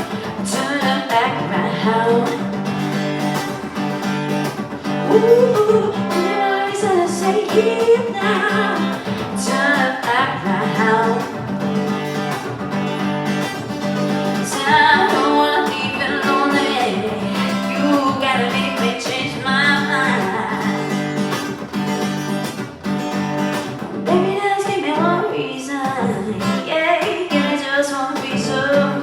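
A live song: a voice singing over a strummed acoustic guitar.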